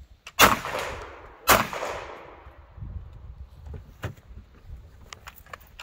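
Two handgun shots about a second apart, each trailing off in a long echo.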